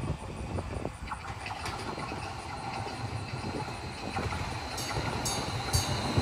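St. Louis MetroLink light rail train running on the track, a low rumble with irregular wheel knocks, growing louder as it comes closer.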